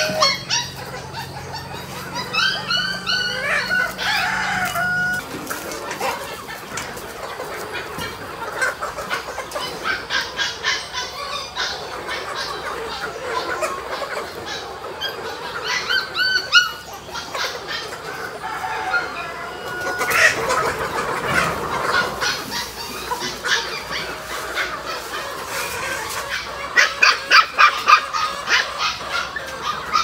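Chickens clucking and calling on and off, with several runs of quick repeated calls.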